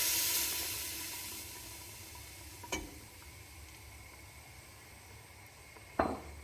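Cream hitting a hot pan of sautéed onions, mushrooms and garlic, sizzling and fading away over the first few seconds. A light click near the middle and a knock near the end.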